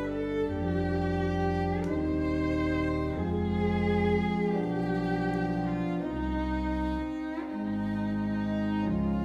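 Violin and church organ playing a slow piece together. The bowed violin melody moves in long held notes, sliding up into a new note a couple of times, over sustained organ chords and low bass notes.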